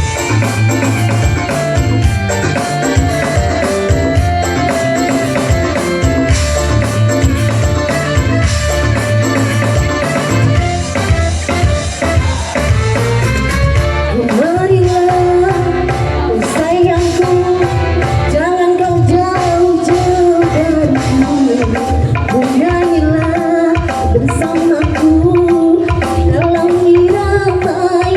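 Loud music: a strong bass beat in the first half, then from about halfway the bass drops out and a held, gliding melody line carries on over lighter percussion.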